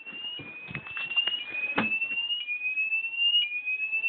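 Fire alarm sounder going off in a repeating sweep tone. Each sweep climbs in pitch for about a second, then drops back and starts again. The system is in full alarm, set off by aerosol deodorant sprayed into its smoke detector. A few short knocks and clicks sound under it, the loudest about halfway through.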